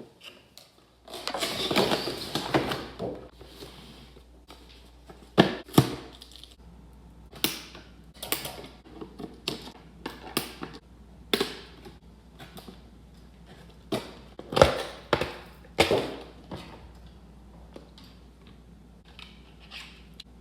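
Unboxing a Breyer model horse: a burst of rustling and scraping packaging about a second in, then scattered sharp taps and clicks as the box and its contents are handled.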